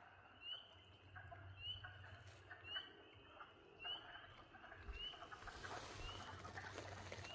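Faint night call of a single frog: a short rising peep repeated evenly about once a second over a low steady hum. A soft broad hiss, like rustling, builds in the last couple of seconds.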